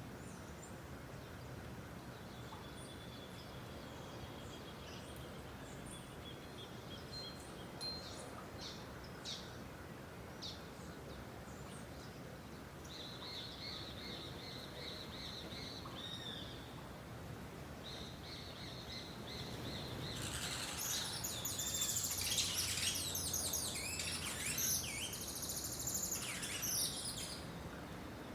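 Wild birds singing: thin high whistled notes and scattered chirps, building into a louder stretch of several birds chirping and trilling together about two-thirds of the way in, then easing off near the end, over a steady background hiss.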